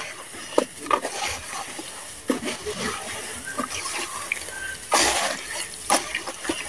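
Hands squeezing and kneading wet sand in a plastic basin: irregular wet squelches and gritty crunches, with the loudest squelch about five seconds in.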